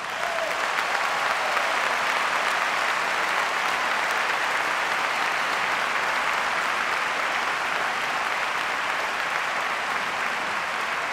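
A large crowd applauding, swelling in at the start and then holding steady.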